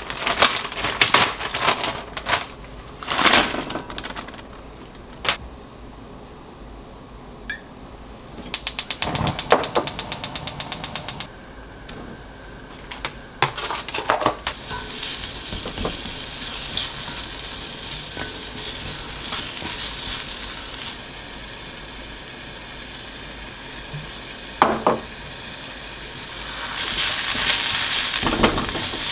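Kitchen cooking sounds: pots, dishes and utensils knocking and clinking, a fast run of clicks for about three seconds, then a steady sizzling hiss that grows louder near the end.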